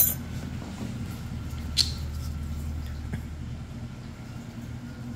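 Steady low hum with a few small clicks of metal nail-care instruments: one at the very start and a sharper, higher tick about two seconds in.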